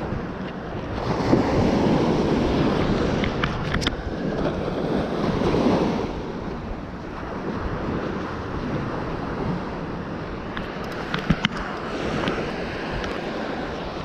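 Ocean surf washing up the beach, with wind buffeting the microphone; the waves surge loudest twice in the first half. A few sharp clicks and taps come through around four and eleven seconds in.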